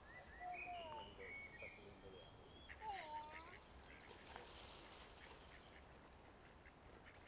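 Faint, soft calls of waterfowl: several short gliding calls between about half a second and a second and a half in, then a lower dipping call around three seconds. A soft hiss follows a little later.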